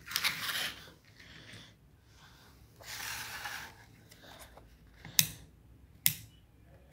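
Handling noise as a DT-830D digital multimeter is picked up and held, two short rustling scrapes. Then its plastic rotary selector dial is turned and clicks sharply twice through its detents, about a second apart near the end.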